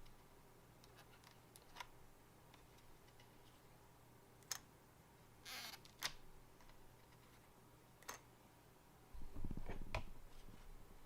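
Scattered light clicks and a short scrape, then a dull thump with a brief low rumble near the end: small hard parts being handled.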